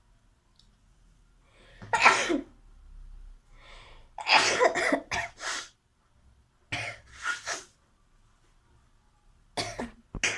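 A woman sneezing repeatedly: a series of short, sharp sneezes, a couple of seconds apart, the loudest about two seconds in.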